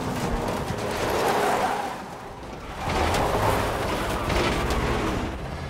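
Film car-chase soundtrack: a car engine running hard as the car tears across dirt and grass, with music underneath.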